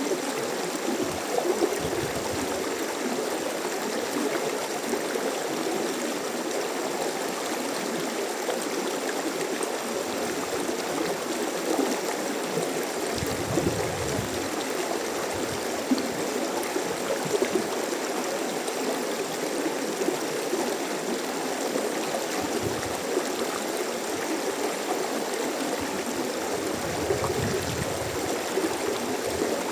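Mountain stream flowing, a steady rush of water with a trickling, gurgling texture.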